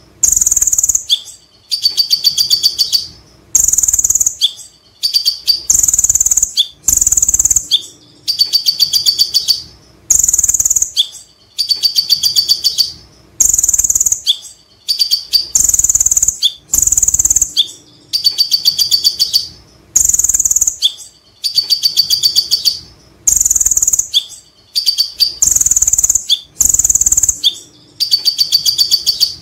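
Van Hasselt's sunbird (konin) singing its chattering 'ngekek' song: fast, high-pitched trilled chatters alternating with short piercing notes, in bursts separated by brief pauses, the same phrase repeating over and over.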